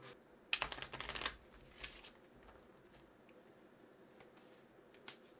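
A deck of runic oracle cards being shuffled: a quick run of card flicks about half a second in, lasting under a second, then a few soft taps and rustles.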